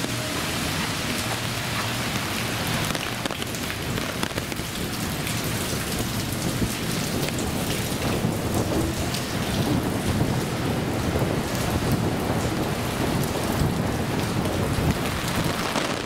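Heavy typhoon rain falling, a dense patter of drops, with a low rumble that grows louder in the second half.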